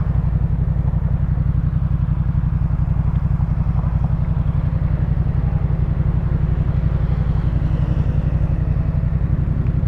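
Yamaha MT-07's parallel-twin engine running steadily at low revs through a Jeskap K4 full aftermarket exhaust, an even low rumble with no revving.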